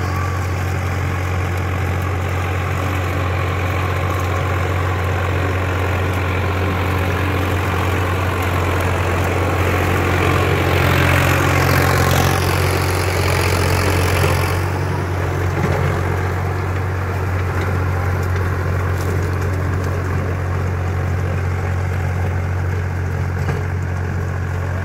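Sonalika DI-740 III tractor's diesel engine running steadily under load while pulling a double-blade rotavator through dry soil. It grows louder as the tractor passes close about halfway through, falls in pitch as it goes by, then settles back to a steady hum as it moves away.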